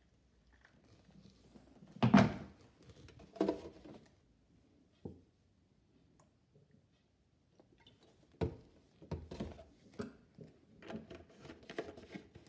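Knocks and clunks of kitchen things being handled and set down on a worktop while making tea: a heavy knock about two seconds in, two lighter ones soon after, then a run of small irregular knocks and clatters near the end as a plastic milk bottle is handled.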